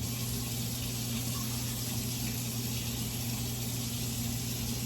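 A steady machine hum with a constant hiss, unchanging throughout.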